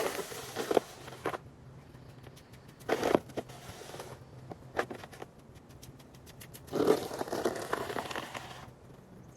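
Snow shovel scraping and crunching through snow in separate strokes, four of them a couple of seconds apart, the last one the longest.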